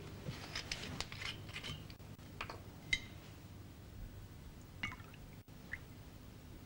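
Faint clinks and handling noises of a whiskey bottle being opened and poured into ceramic mugs: a scatter of small clicks, with one sharper clink about three seconds in and a few more near five seconds.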